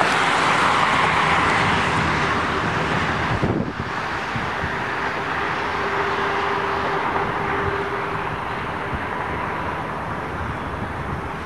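Steady rumble of a passing vehicle, fading gradually, with a faint steady hum in the middle of it.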